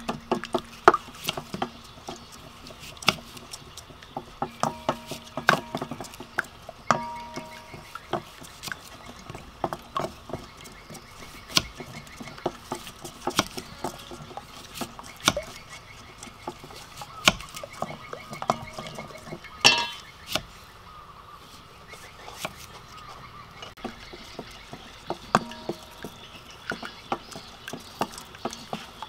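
A knife slicing through a raw onion onto a wooden chopping board, each cut ending in a sharp tap on the wood at irregular intervals. Later come softer handling sounds as the onion slices are pushed apart into rings over a metal tray.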